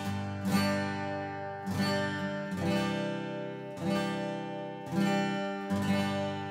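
Tokai Cat's Eyes CE1300F steel-string dreadnought acoustic guitar with chords strummed with a pick. Each chord is struck sharply and let ring, about once a second.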